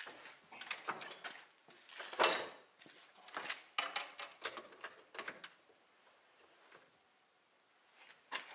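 A steel snowmobile handlebar being handled on a workbench and clamped in a bench vise: a run of metal clunks and scrapes, the loudest a ringing clank about two seconds in. The sounds die away about six seconds in, and one more knock comes near the end.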